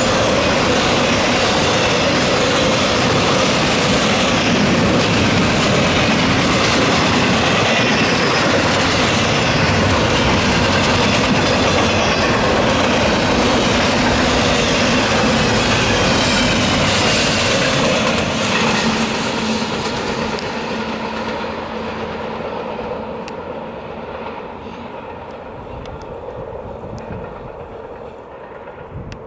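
Double-stack intermodal freight cars rolling past on the track, a dense rumble of wheels on rail with thin wavering high wheel squeals. From about 18 seconds in it fades steadily as the train moves away.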